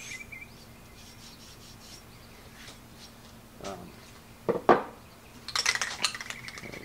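Small painted steel brackets clattering as they are put down on a metal table top, with one loud knock about two-thirds of the way through. Near the end comes a quick rattling run of clicks as an aerosol spray paint can is picked up and shaken, its mixing ball knocking inside.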